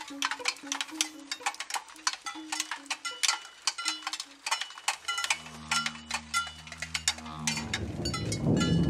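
Experimental music soundtrack: dense, irregular clicking percussion with faint metallic pings over a short, low melody. About five seconds in, a sustained low drone chord takes over, and near the end a rushing noise swells up louder.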